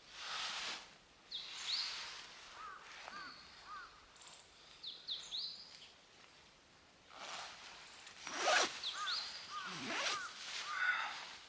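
Small birds chirping repeatedly in short, curving notes, with several brief swishing noises in between; the loudest swish comes about eight and a half seconds in.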